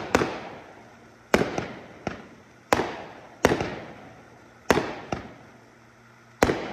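Aerial fireworks going off: six sharp bangs roughly a second apart, each trailing off in a long fading echo, with a couple of smaller pops between them.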